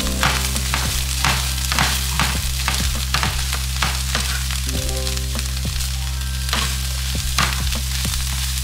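Mince with onions and green bell peppers sizzling in a nonstick frying pan while a wooden spatula stirs and scrapes through it, about two strokes a second.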